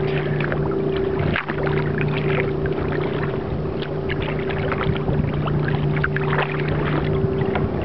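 Steady drone of an approaching motorboat's engine, a low hum with a second, higher hum line, under small splashes of lake water against the kayak.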